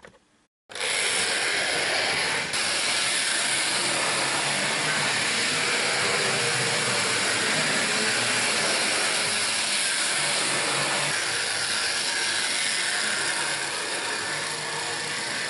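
Trix Express model V100 diesel locomotive running on the track: a steady whirring, rattling noise of its electric motor, gears and wheels on the rails, starting suddenly under a second in.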